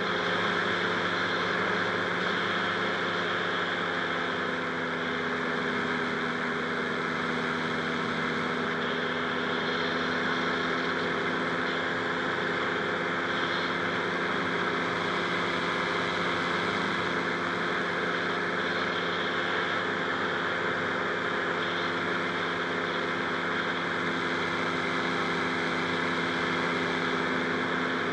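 Rotax 582 two-stroke twin engine of a Buckeye powered parachute running at a steady speed, its note holding even with no revving up or down.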